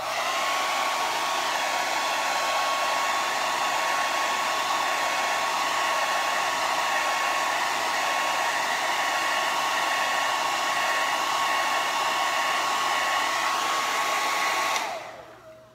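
Hand-held hair dryer running steadily, a rush of blown air with a thin steady whine over it; switched off near the end and winding down.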